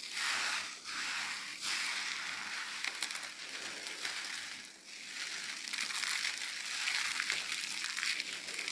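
Crumbled dry soap pieces mixed with cornstarch being squeezed and crushed in the hands: a dry, crisp crunching in several long surges, one per squeeze, with short breaks between them.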